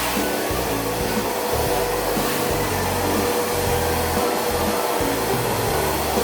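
Steady rushing whir of a small electric appliance's motor and airflow, such as a vacuum cleaner or hair dryer, running without a break over background music.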